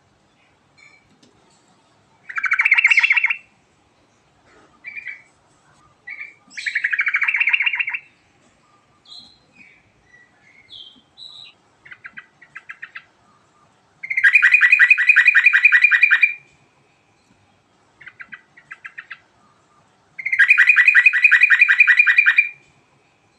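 Sooty-headed bulbul (trucuk) singing in fast rolling trills: two short bursts early on, then two longer trills of about two seconds each near the middle and near the end, with short chirps and notes between them.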